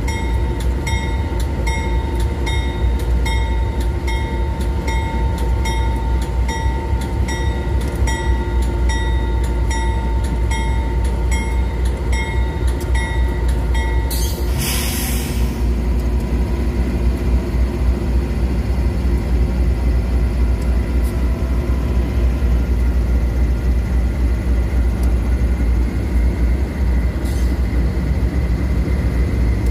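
Rumo GE diesel-electric freight locomotives rolling slowly past in dynamic braking, with a deep steady engine rumble throughout. For the first half a high tone pulses in a regular rhythm, and about halfway a brief loud hiss sounds, after which a steady lower tone carries on.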